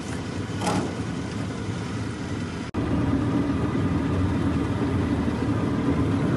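Small boat's motor running steadily. About two and a half seconds in the sound breaks off abruptly and resumes louder.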